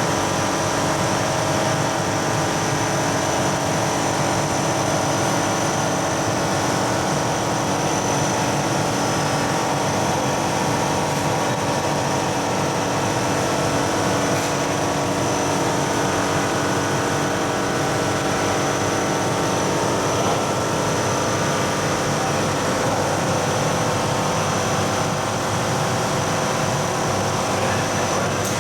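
A steady mechanical drone with several held tones and a high thin whine above them, unchanging throughout.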